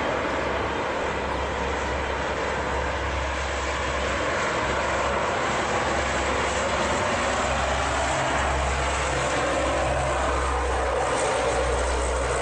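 Lockheed C-130 Hercules's four turboprop engines and propellers running at high power during the take-off roll: a loud, steady roar with a low rumble underneath, growing a little louder about four seconds in.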